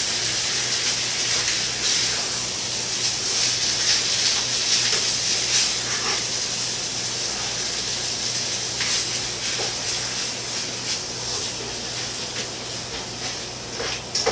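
Ground beef and pasta sauce sizzling and bubbling in a pot on the stove: a steady hiss that eases slightly toward the end, with a few clicks of a spoon against the pot.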